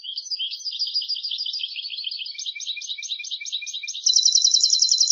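European goldfinch singing: a rapid, continuous twittering of short high notes that turns into a louder, faster trill about four seconds in.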